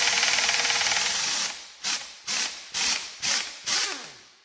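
Pneumatic impact wrench spinning off the pinion yoke nut of a Ford 8-inch rear end: a hissing, rattling run of about a second and a half, then five short blips about half a second apart.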